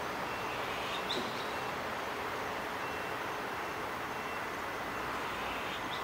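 Steady hum of distant city traffic, with a short, sharp, high bird call about a second in and another near the end.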